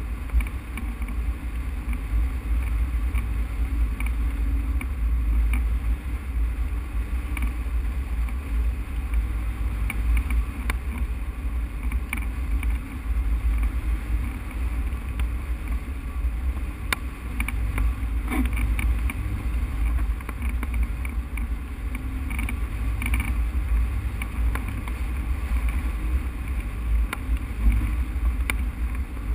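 Wind buffeting the microphone of a camera mounted on a hang glider in flight: a steady low rumble, with a few sharp clicks.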